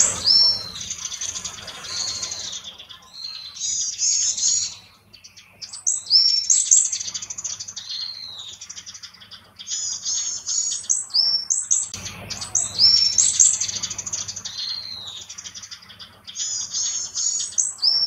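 Male varied tit singing its breeding-season territorial and courtship song. It repeats high, thin 'tsu-tsu-pee' notes in phrases a second or two long, separated by short pauses, at a slower tempo than the Japanese tit's song.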